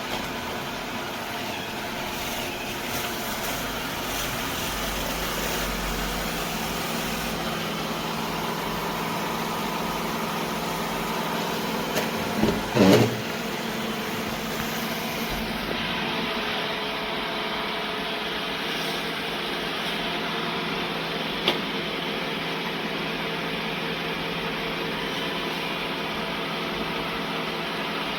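Roomba j7+ robot vacuum running with a steady motor hum. A little before halfway there is a brief louder wavering sound, and a single sharp click comes later.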